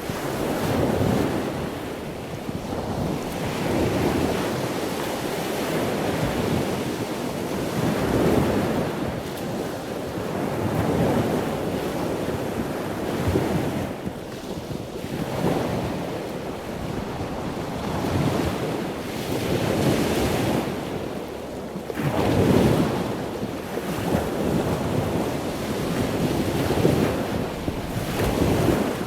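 Ocean waves washing in and receding: a steady rushing that swells and fades every few seconds.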